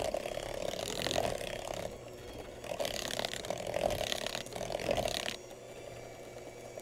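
Electric hand mixer on its lowest speed, beaters churning thick molasses batter in a plastic bowl: a steady motor whir with the beater noise rising and falling in uneven surges, easing off for the last second or so.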